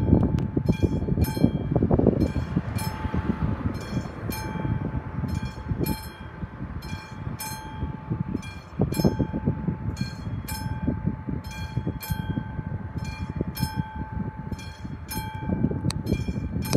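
Railway level crossing warning bell ringing steadily, one ding about every three-quarters of a second: the signal that a train is approaching. A loud, uneven low rumble runs underneath.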